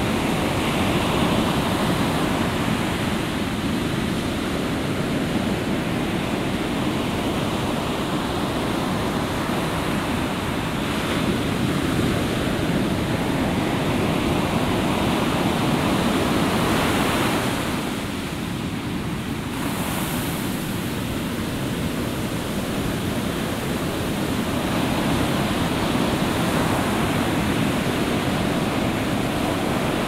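Heavy ocean swell breaking and surging against the rocks of a headland: a continuous roar of surf and wash, easing slightly about two-thirds of the way through before building again.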